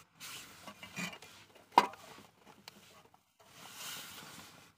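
Small handling noises as a wired amplifier circuit board is lifted and turned over by hand inside a speaker box: soft rustling and scraping of the board and its wires, with one sharp click a little under two seconds in.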